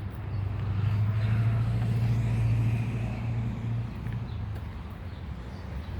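A motor vehicle passing by: engine hum and road noise swell about half a second in and fade away over the next few seconds.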